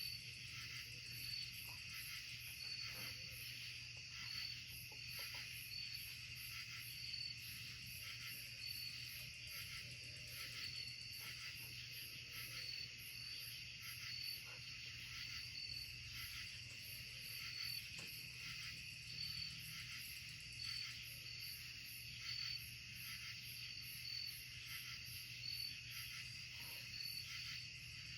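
Night insect chorus of crickets and other chirping insects, a steady, evenly pulsing trill that carries on unbroken, with a faint low hum beneath.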